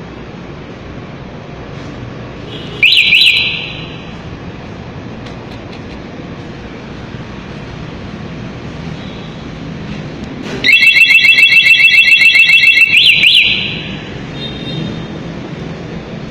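Rusi Swish 110 scooter's anti-theft alarm sounding: a short sweeping chirp about three seconds in, then a louder burst of rapid pulsing high tones lasting about two and a half seconds, ending in a sweep.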